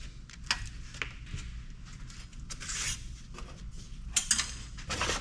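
Scattered clicks, knocks and light metal clatter of computer parts being handled and set down, with a brief rustle partway through.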